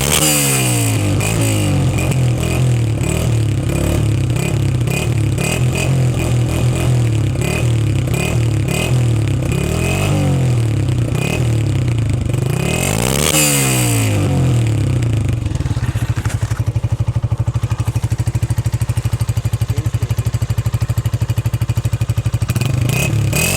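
Honda CG 125 (2021) single-cylinder four-stroke engine and exhaust, revved up and down several times with a big rev about 13 seconds in. It then settles to a steady idle with an even pulse for several seconds before being blipped again near the end.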